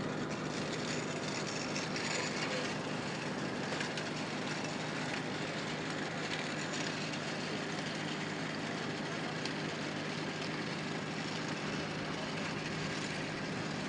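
Aircraft engines running with a steady, unbroken drone and a constant low hum.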